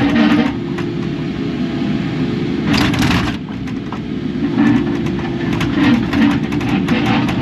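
Kubota KX080 excavator running under load with a steady whine, its bucket working dirt and rock with irregular knocks and scrapes and a short loud rush about three seconds in.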